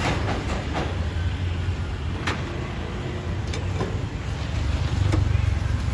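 Metal tongs and wire fish-grilling baskets clinking against each other and the grill's metal frame, a handful of sharp single clinks, the loudest a little over two seconds in, over a steady low rumble.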